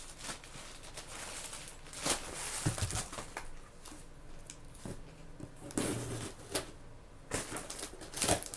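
A cardboard shipping box being opened by hand: scattered rustling, scraping and tearing of cardboard and packing tape, broken by a few sharp knocks.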